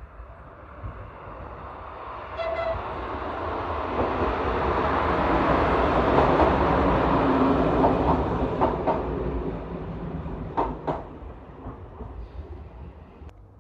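Locomotive-hauled passenger train approaching and passing close by, with a short horn toot about two and a half seconds in. The rush of wheels and coaches grows loud in the middle, with a few sharp clacks of wheels over rail joints, then fades as the train moves away.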